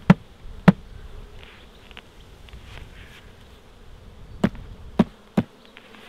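Five sharp taps on a beehive lid: two near the start, then three about half a second apart near the end. They jar the clustered swarm bees off the lid into the box so the queen isn't lost. The bees hum steadily throughout.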